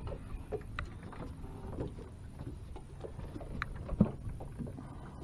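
Low, steady rumble of wind and water lapping around a small aluminium fishing boat, with a few faint knocks and clicks on the boat.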